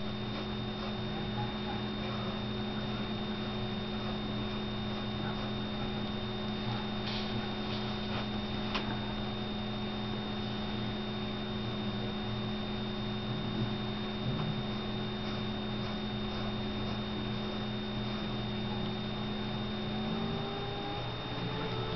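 Steady electrical mains hum made of several constant tones, with a couple of faint ticks near the middle.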